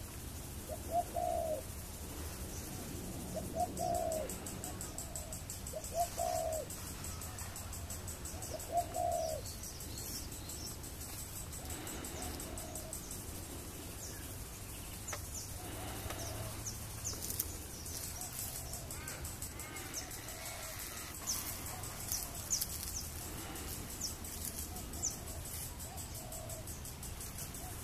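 Pigeon or dove cooing, one low call repeated every two to three seconds, louder over the first ten seconds and fainter after. Small birds chirp high above it from about halfway through.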